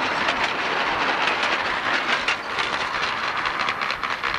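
Open passenger carriages of a 10.25 in gauge miniature railway clattering past close by, with a rapid run of wheel clicks over the rail joints. The sound eases off near the end as the last carriage goes by.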